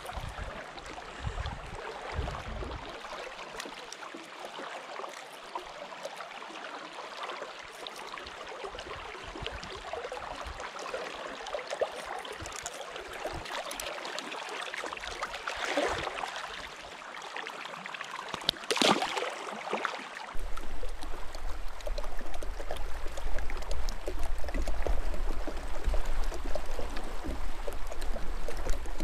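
Shallow, fast river current running and gurgling over rocks, with splashes from a hooked northern pike thrashing at the surface at the start. A few brief splashes come later, and a louder steady low rumble sets in about twenty seconds in.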